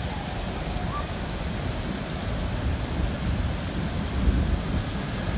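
Heavy rain falling in a thunderstorm, with a low rumble under it that swells about four seconds in.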